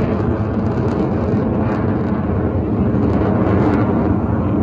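Jet aircraft in flight, its engine noise a steady, loud, low-pitched roar of noise.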